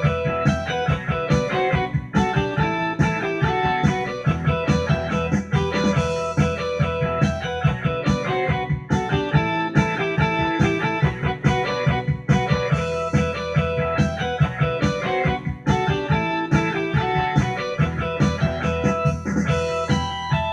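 Electronic keyboard played by hand: a blues-rock tune over a steady drum and bass beat, the lead voice sounding like an electric guitar.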